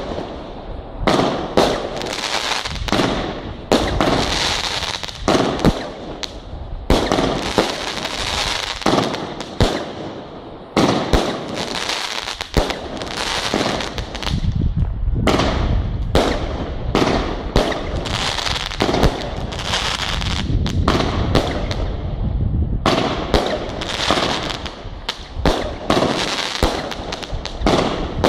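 Firework cake firing a run of big-bore comet shots, a sharp launch bang every second or two, each followed by bursts of crackling glitter (dragon eggs) overhead.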